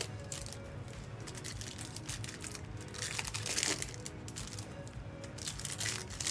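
Foil trading-card pack wrappers crinkling and cards being handled, loudest a little past halfway, over quiet background music.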